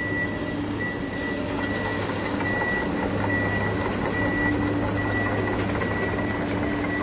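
Toy RC excavator's small electric motors and gears running as it swings round and lowers its boom and bucket: a steady hum with a thin high whine that comes and goes.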